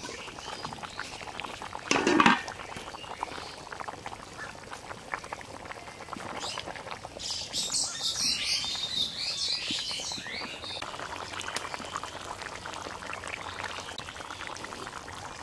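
A metal lid is lifted off an aluminium cooking pot with a short clank about two seconds in. After that, fish curry bubbles at the boil in the open pot, with a brighter, higher patch of sound in the middle.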